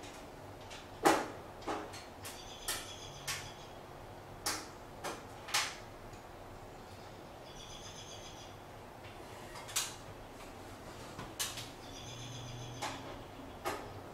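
Hands working at the metal front panel of a ceiling-mounted electric garage heater: a dozen or so sharp, irregularly spaced clicks and knocks, the loudest about a second in.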